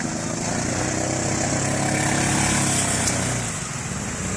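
Side-by-side UTV engine running under throttle as the machine wades through creek water, growing louder about halfway through and easing off near the end.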